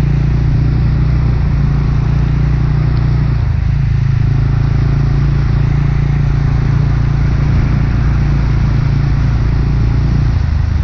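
KRY 200 dirt bike engine running at a steady pitch as the bike rides through floodwater, with water splashing off the front wheel.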